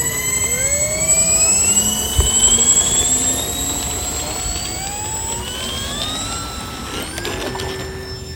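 Electric motors and propellers of a four-engine RC B-24 Liberator foam model whining, several tones that dip in pitch about half a second in and then climb steadily.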